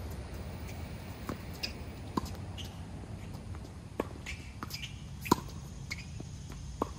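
Footsteps and light taps on a tennis court between points, scattered and irregular, the loudest about five seconds in.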